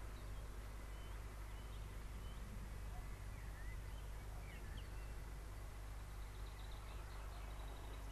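Small birds chirping in short, scattered calls over a faint, steady low rumble from a Class 37 diesel locomotive still far off down the line.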